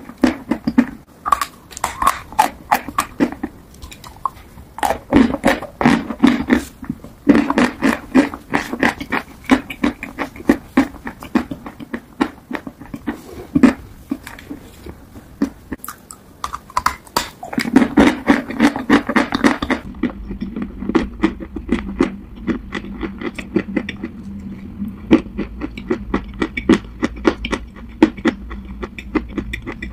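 Close-miked crunching and chewing of hard white chalk, a dense run of sharp crunches and crackles as chunks are bitten and chewed. About 20 seconds in the sound changes to the crunching of dark clay.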